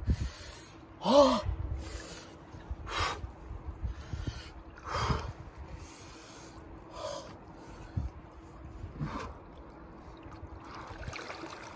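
A man gasping and breathing hard in short, sharp breaths about every two seconds as he lowers himself into ice-cold water, the body's cold-shock response. The loudest is a brief voiced cry about a second in.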